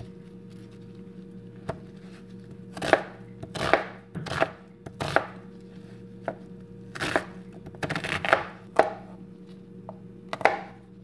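Kitchen knife chopping a peeled onion and a garlic clove on a plastic cutting board: irregular sharp cuts in short runs, with pauses between them.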